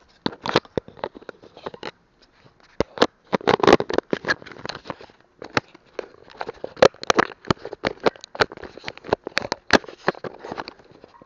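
Handling noise: a hand rubbing, gripping and knocking against the camera and its microphone, giving irregular loud clicks, bumps and rustles.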